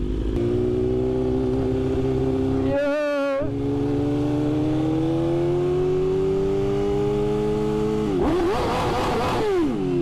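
Straight-piped BMW S1000RR inline-four engine running under steady throttle while riding, its pitch climbing slowly. Near the end it is revved up and back down.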